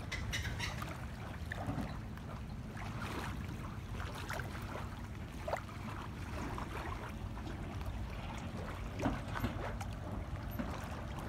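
Small waves lapping and splashing against a concrete boat ramp and dock, with irregular little splashes, over a steady low rumble of wind on the microphone.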